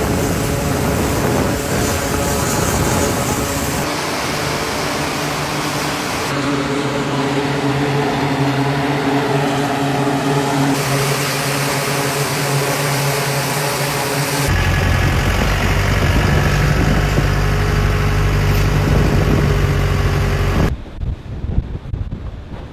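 E-2 Hawkeye turboprop engines running, a steady droning hum of several tones that changes abruptly a few times. Near the end it gives way to wind buffeting the microphone.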